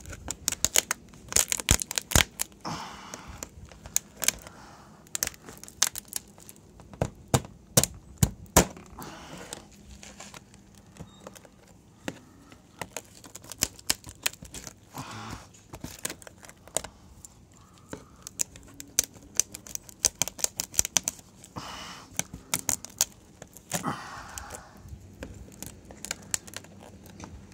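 Old brittle plastic clearance-light housing being broken and pried off a camper wall by hand: irregular sharp cracks and snaps, with tearing as the pieces pull away from hardened old adhesive. The cracks come thick in the first third, then sparser.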